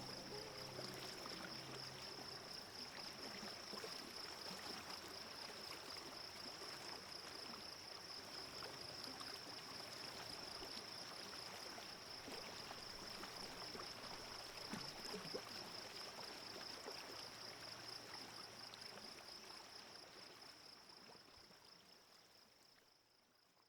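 Faint running water of a stream, with a steady high-pitched trill over it, fading out near the end.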